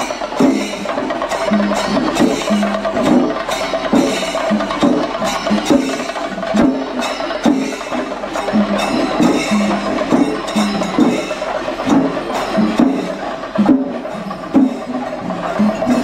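Kerala temple percussion ensemble (chenda melam): chenda drums struck with sticks in a fast, repeating rhythm, with cymbals and a held high tone underneath.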